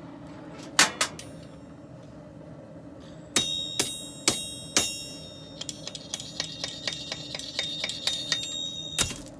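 Hand hammer striking hot sword steel on an anvil, each blow ringing. Two blows come about a second in, then four heavy ringing blows, then a quicker run of lighter taps at about four a second that ends in one hard blow. The smith is hammering the sword's tang and blade base straight.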